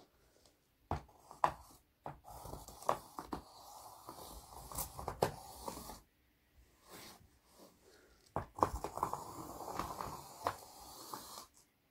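Graphite pencil scrubbing and jabbing hard at a large sheet of paper on a board: scratchy rubbing broken by sharp taps, in two spells with a pause of about two seconds between.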